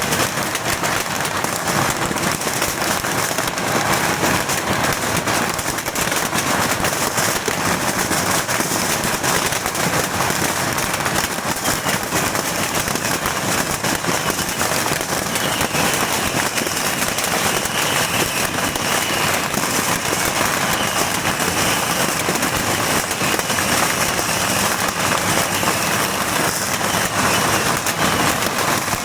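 Beehive-fireworks firework fort going off: a dense, unbroken crackle of bottle rockets and firecrackers bursting many times a second, steady and loud throughout.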